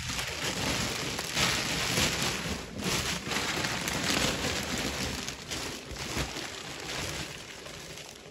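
Plastic bags and plastic sheeting rustling and crinkling as wrapped bales are grabbed and shifted by hand, a dense crackly noise that eases off near the end.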